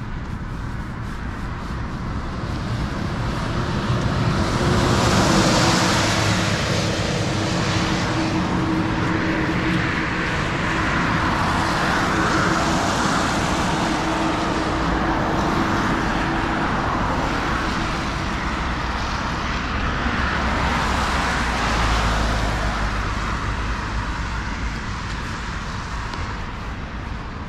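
Road traffic: cars passing one after another, the tyre and engine noise swelling and fading about three times.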